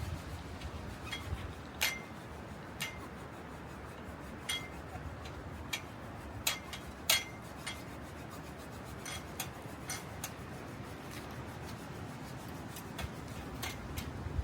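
Irregular sharp clicks and light metallic tinks, well over a dozen spread unevenly through the time, over a faint steady background hiss.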